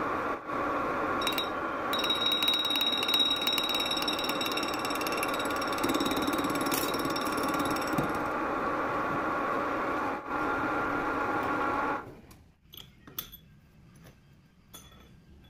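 Metal lathe running steadily while turning a metal part in its three-jaw chuck, its gears giving a steady whine. The sound cuts off suddenly about twelve seconds in, leaving a few faint clicks as the part is handled.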